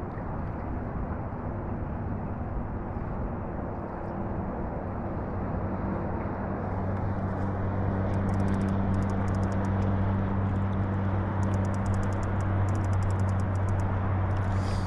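A steady low motor hum grows louder from about six seconds in, over a constant rushing of wind and choppy lake water. Faint rapid ticking comes in over the last half.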